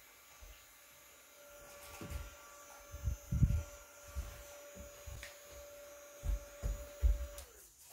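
Small battery-powered handheld mini fan running: its motor gives a steady hum that starts about a second and a half in and drops in pitch as the fan is switched off and winds down near the end. Several low thuds come in between, the loudest about three and a half seconds in.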